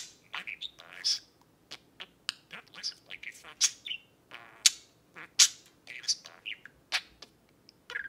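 Budgerigar chatter: a quick, irregular run of short chirps, clicks and warbles.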